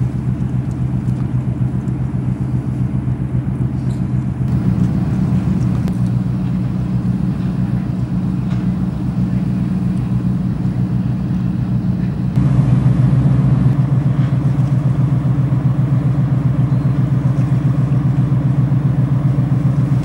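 An engine running steadily with a low drone. It steps up in level about four and a half seconds in, and again about twelve seconds in.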